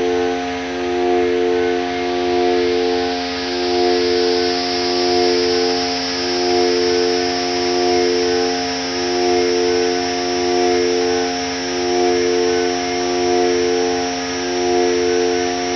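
Synthesizer drone from a Korg Volca Modular: a chord of held tones that swells and dips in a slow pulse about every second and a half. A thin high tone fades in a couple of seconds in.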